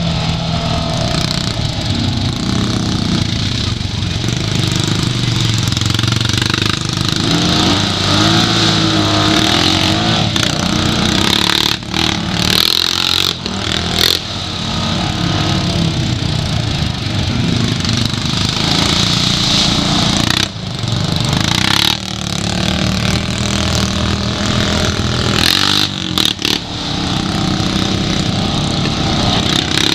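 Honda Pioneer 500 side-by-side's single-cylinder engine running as it drives along a dirt trail, heard from the driver's seat, the throttle rising and easing with a few brief dips in level.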